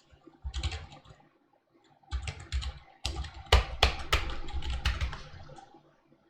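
Typing on a computer keyboard: a short run of keystrokes, a pause of about a second, then a longer, steady run of keystrokes.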